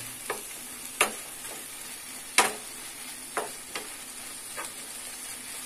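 A metal spoon stirring and scraping a cooked onion and tomato mixture in a nonstick frying pan over a steady sizzle, with about six sharp scrapes and knocks against the pan.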